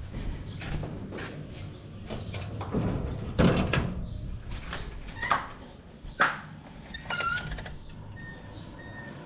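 A sheet-steel door being handled, with knocks and clatter and footsteps, the loudest knock about three and a half seconds in. A short squeak about seven seconds in.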